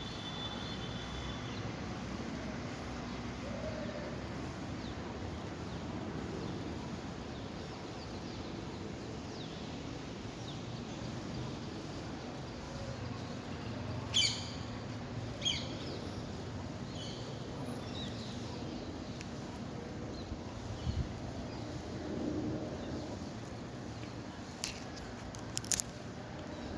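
Outdoor garden ambience with a steady background hiss and birds calling: a quick run of four or five sharp, falling chirps about halfway through, then fainter scattered chirps, and a few sharp ticks near the end.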